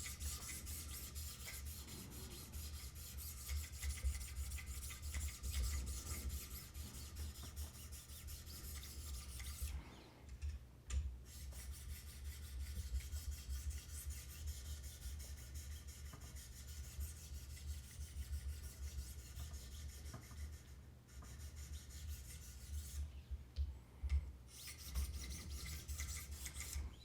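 Wicked Edge 1,000-grit diamond stones stroked rapidly along a CPM-M4 steel knife blade: a continuous gritty scraping of abrasive on steel, broken by a few short pauses.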